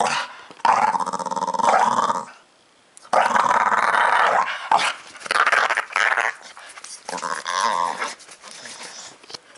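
Staffordshire Bull Terrier making drawn-out playful growls while having its belly scratched, a grumbling demand for more scratching. There are two long growls, the second starting about three seconds in, then a shorter one near the end.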